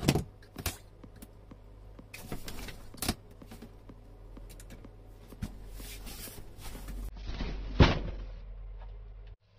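A cardboard box being opened and its packaging handled: rustling, sliding and scraping, broken by knocks, with one sharp knock near the end.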